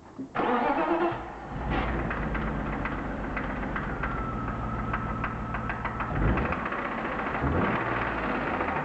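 BMW M52B25 inline-six engine starting with cylinder 3's ignition coil unplugged: it cranks and catches within about a second, then settles into a steady idle with a regular ticking knock. The knock is unchanged with the coil off, which makes the owner doubt that it is a rod-bearing fault.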